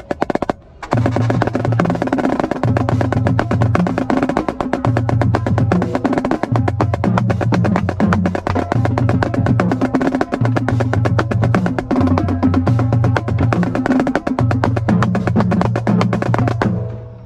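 Marching snare drum played in a fast, dense cadence with rolls, over music with a low bass line. The drumming starts about a second in and stops just before the end.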